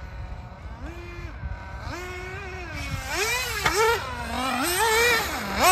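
Radio-controlled buggy running on a dirt track, its motor's pitch rising and falling again and again as the throttle is worked. It gets much louder from about three seconds in.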